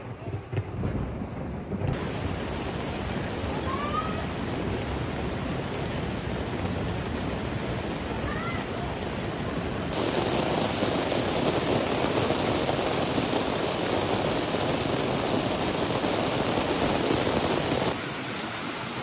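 Heavy rain and rushing muddy floodwater making a continuous noisy wash, which changes abruptly about 2, 10 and 18 seconds in as separate phone clips cut together.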